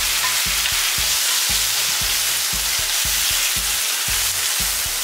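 Boiled mutton pieces frying in groundnut oil with shallots and spices, sizzling steadily while they are stirred in the pan.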